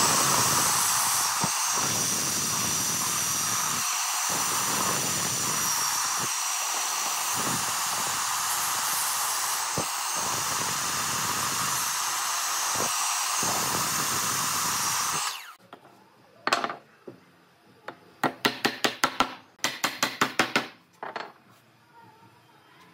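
Electric miter saw running steadily with a high whine as it crosscuts a stack of wooden strips into small blocks; the sound cuts off suddenly about fifteen seconds in. After that come several quick runs of sharp taps.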